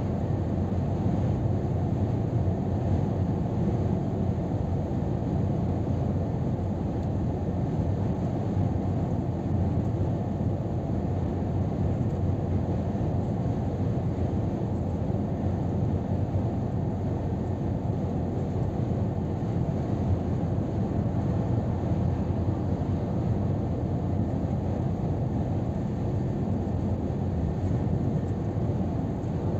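Cab interior of a Scania R500 truck cruising at motorway speed: a steady low rumble of engine, tyres and wind, unchanging throughout.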